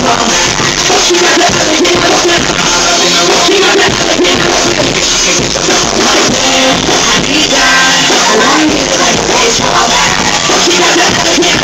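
Live hip-hop performance played loud through a stage PA: a rapper's vocals into a handheld microphone over a backing track.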